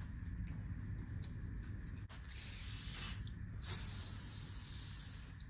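WD-40 aerosol can spraying: two long hissing bursts with a short break between them, the first starting about two seconds in.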